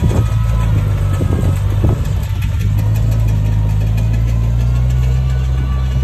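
Komatsu bulldozer's diesel engine running steadily with a deep drone, with a few clanks in the first two seconds.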